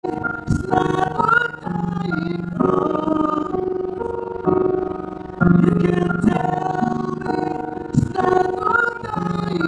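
A man singing into a handheld microphone, his amplified voice carrying a melody in long held notes that change every second or so.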